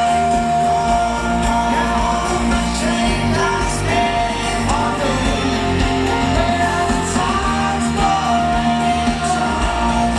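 A pop-rock song: a sung vocal melody over a full band with steady bass.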